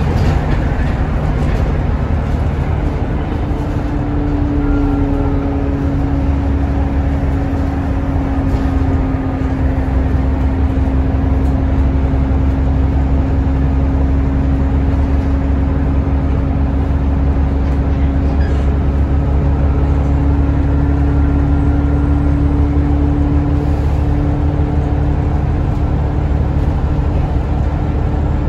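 Alexander Dennis Enviro400 double-decker bus heard from inside the upper deck while under way: a steady low rumble of engine and road noise. A droning tone comes in a few seconds in, holds for about twenty seconds and fades near the end.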